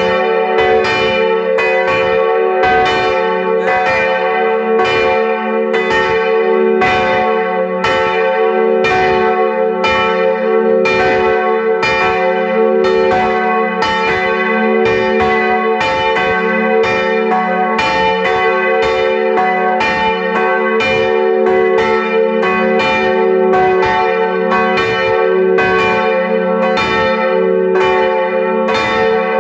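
Church bells ringing together in a continuous peal. The strikes come about twice a second, each one ringing on into the next.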